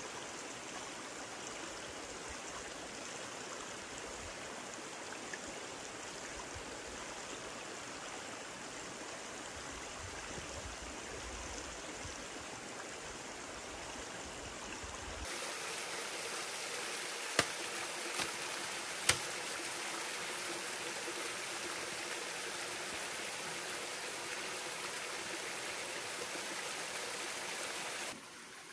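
Steady rush of stream water flowing, a little louder about halfway through, with two sharp knocks a couple of seconds apart soon after.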